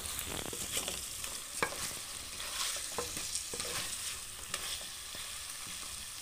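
Chicken pieces sizzling in their sauce in a metal pot as a spoon stirs them, with a steady hiss and a few light clicks of the spoon against the pot.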